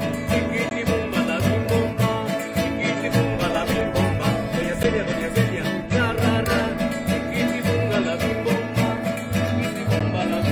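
Mariachi band playing: strummed guitar and vihuela over the plucked bass notes of a guitarrón, in a steady rhythm.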